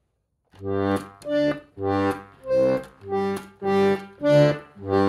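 Small accordion played on its left-hand bass buttons, which are laid out in fifths: a run of about eight short, separate bass notes and chords, each held about half a second, the last one longer.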